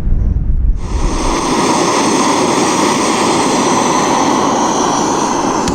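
Wind buffeting the microphone, then about a second in a steady rushing hiss, a camping gas stove burner running at full flame.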